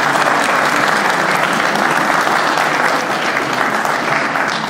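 An audience applauding, a steady dense clapping that eases slightly in the last second or so.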